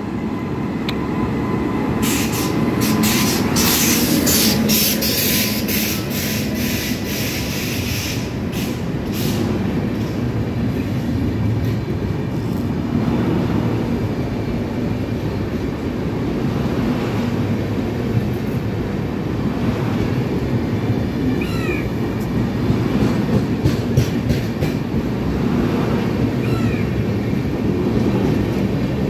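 Shatabdi Express passenger train, hauled by a WAP-5 electric locomotive, running through at speed. A steady rumble of wheels on rail, with a quick series of sharp clicks from the wheels for several seconds near the start as the locomotive and first coaches go by.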